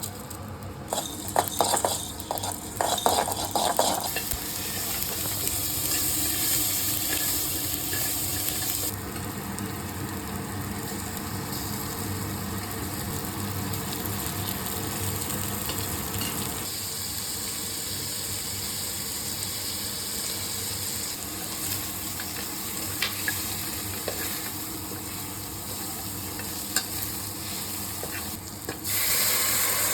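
Food sizzling as it fries in hot oil in a pan, with a few sharp clinks of a utensil against the pan in the first few seconds while it is stirred. A louder rush of hiss starts just before the end.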